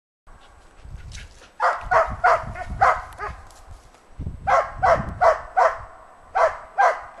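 A laika hunting dog barking at a young lynx it has treed, a hunting dog's bay holding game in a tree. The barks come in quick runs of four or five, about two to three a second, with short pauses between.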